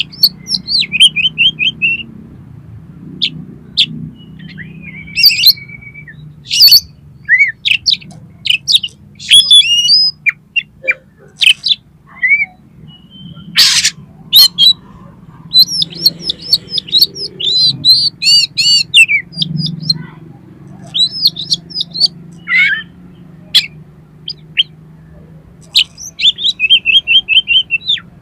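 Oriental magpie-robin (kacer) singing a loud, varied song of whistled notes and fast repeated trilled runs, with one harsh rasping note about halfway through. A low steady hum runs underneath.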